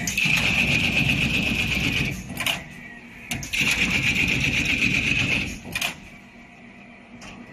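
Semi-automatic corrugated carton box stitching machine running, driving wire stitches in two runs of about two seconds each, with a few sharp knocks between them.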